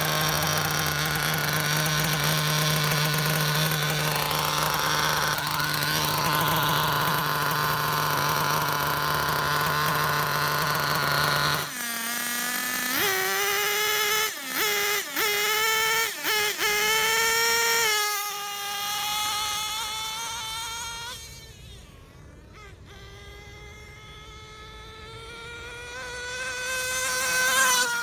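Nitro engine of a 1/8 scale on-road RC car, a .21 non-pull-start. A steady drone for about twelve seconds, then a run of sharp throttle blips rising and falling in pitch, then the engine running on more faintly with its pitch and level climbing near the end.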